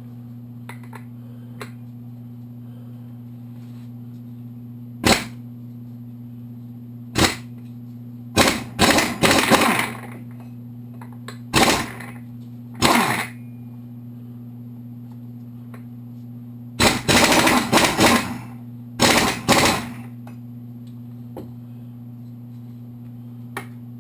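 Pneumatic impact wrench hammering on a 30 mm clutch boss nut of a Kawasaki KLR650 engine, in about seven bursts, short single blasts and longer strings of a second or more. The nut does not spin off at once, and the air supply may be running low. A steady low hum underlies it.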